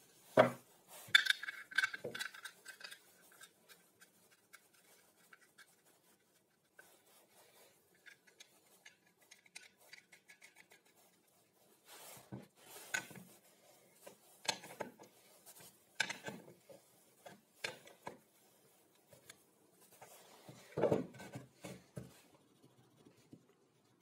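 Plywood jig pieces being handled, knocking on a wooden workbench, with light metal clinks and a brief ringing from the steel threaded rod and fittings. The knocks come in scattered bursts; the loudest is right at the start and another comes near the end, with a quieter stretch of faint rubbing and scraping between.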